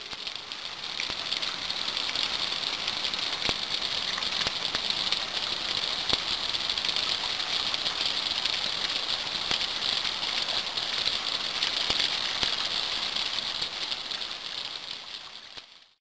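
Rain falling steadily on wet asphalt and into a puddle: a dense patter with sharper single drop ticks here and there, fading out near the end.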